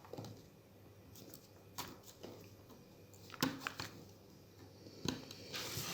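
Small sharp clicks and a short scrape near the end: hand work on an opened smartphone's insides, such as popping its ribbon-cable connectors off the board.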